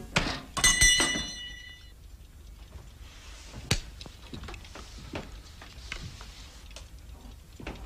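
Small spring-mounted door bell ringing briefly, several clear tones dying away within about a second. Then scattered light clicks and knocks, one sharper than the rest just before four seconds in.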